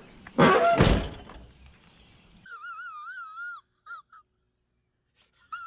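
A person lets out a loud, heavy sigh about half a second in. Then a bird calls in wavering, warbling notes, followed by a few short chirps near the end.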